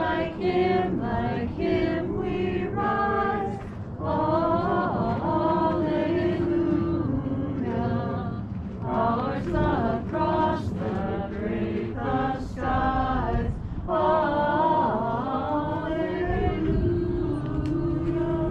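A group of voices singing a hymn together, in long held notes.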